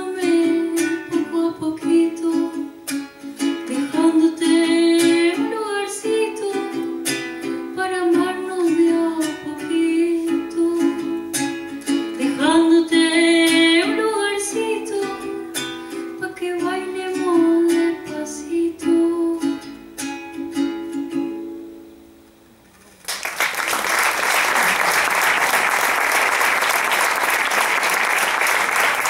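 A woman singing to a strummed small acoustic guitar; the song fades out about 21 seconds in. After a brief pause, audience applause starts about two seconds later and continues steadily.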